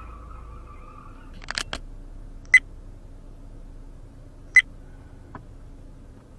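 Inside a car stopped in traffic: a faint steady hum, with a couple of soft clicks about a second and a half in, then two sharp, short, high clicks two seconds apart.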